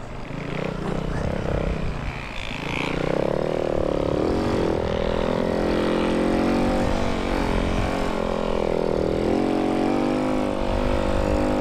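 Snow bike engine, a dirt bike fitted with a ski-and-track kit. About three seconds in it picks up speed with a rising pitch, then runs steadily at speed with small rises and dips in pitch.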